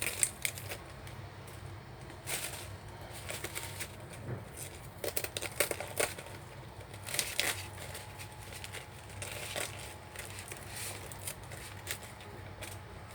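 Irregular crinkling and rustling as vegetables are handled, with broken leaves being pulled off and their packaging crackling, in scattered short bursts.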